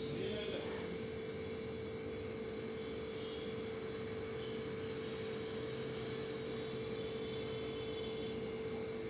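A steady single-tone hum over a constant hiss, with a few faint brief sounds on top.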